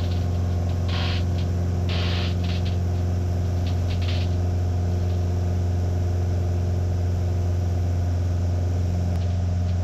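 Piper Arrow's single piston engine and propeller running steadily at climb power just after takeoff, a constant low drone heard inside the cockpit.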